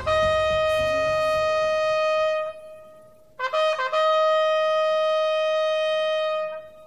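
Trumpet sounding a ceremonial call: one long held note, a brief break, a quick run of a few short notes about three and a half seconds in, then the same note held again for over two seconds.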